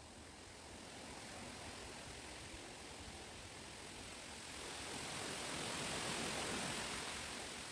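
A gust of wind through chestnut trees, the rustle of leaves and stems swelling to a peak about six seconds in and then dying away.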